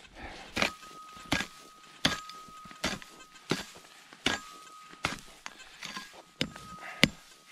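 Footsteps through tall dry grass at a steady walking pace, about three steps every two seconds, with a faint steady high tone running beneath most of them.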